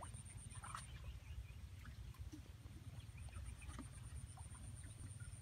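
Low wind rumble on the microphone, with a faint pulsing high-pitched buzz and scattered faint chirps and clicks.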